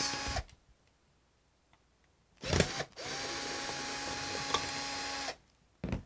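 Cordless drill-driver backing out a screw from a Schlage BE365 deadbolt's mounting plate: a short blip about two and a half seconds in, then the motor runs at a steady pitch for about two seconds and cuts off suddenly, with a short burst near the end.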